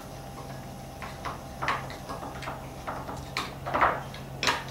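Metal spoon scraping and clinking against a ceramic bowl in irregular strokes, stirring shrimp paste into water to dissolve it, over a steady low hum.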